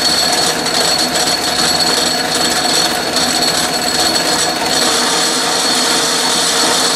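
Atlas metal lathe running steadily, with its motor, belts and change gears whirring and a steady high whine, as the carriage feeds along the leadscrew on a thread-cutting pass in steel.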